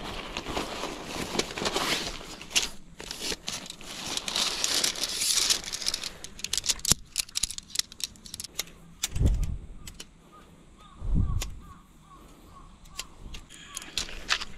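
Nylon tent fabric and its stuff sack rustling as they are unpacked. Then metal tent poles clicking and knocking as the sections are handled, with two low thumps partway through.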